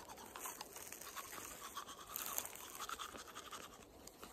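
Toothbrushes scrubbing teeth, with quick, faint back-and-forth bristle strokes from two people brushing.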